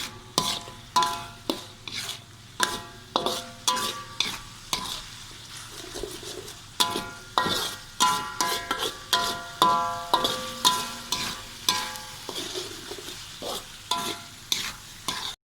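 Sliced shallots sizzling as they fry in oil, while a metal spatula stirs them and knocks against the pan, each strike ringing briefly. The sound cuts off suddenly near the end.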